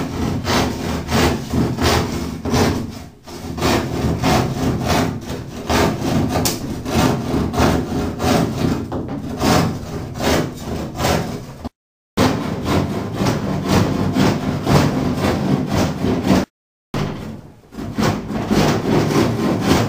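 Hand saw cutting through a sheet of plywood in steady back-and-forth strokes, about two a second; the sawing breaks off twice for a moment.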